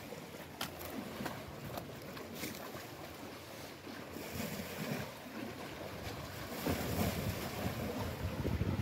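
Wind buffeting the microphone over a steady wash of sea surf on a rocky shore, the low gusts growing stronger in the last few seconds. A few light clicks come in the first couple of seconds.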